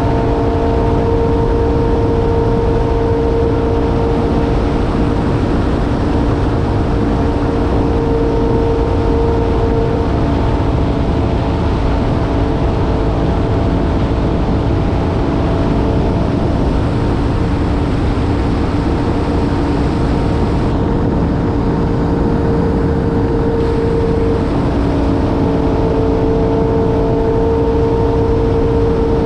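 Personal watercraft (jet ski) running at a steady cruising speed: a constant engine and jet-pump whine with a held pitch over a steady rushing noise.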